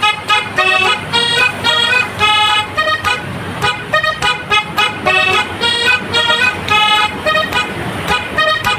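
Bus 'telolet' horn: a set of multi-tone horns playing a quick tune of short toots at changing pitches, a few notes a second. It starts suddenly and keeps going, over a low road rumble.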